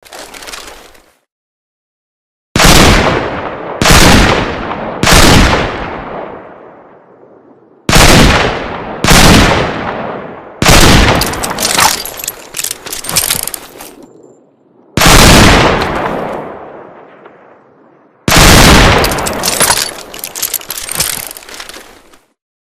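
Ruger GP100 revolver firing: three shots about a second apart, two more, then a fast string of shots, a single shot, and another fast string near the end. Each shot is loud and sharp, followed by a long fading echo.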